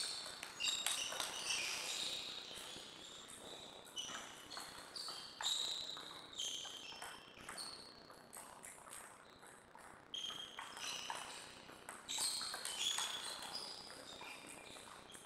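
Table tennis rally: the celluloid-type ball clicking off the bats and the table, many sharp clicks in quick irregular succession, some with a brief high ring.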